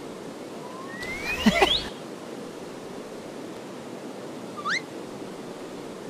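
Steady wash of sea surf. About a second in comes a burst of whistle-like sliding tones, some rising and one falling, and near the end a short rising chirp.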